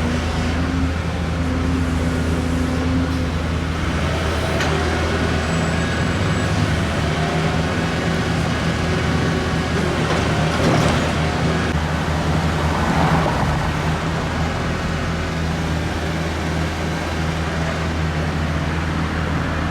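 A large motor vehicle's engine running with a steady low hum, amid road traffic, swelling briefly about halfway through.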